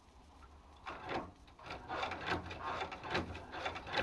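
Hand-cranked Chinese patcher sewing machine stitching veg-tanned kangaroo leather, its mechanism clacking and the needle working through the leather. It makes a quick run of scraping strokes, roughly three a second, starting about a second in.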